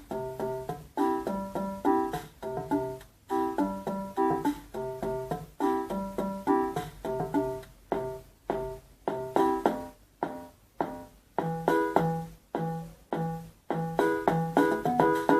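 Electronic keyboard music: short plucked-sounding notes with a repeating bass line and chords in a steady rhythm.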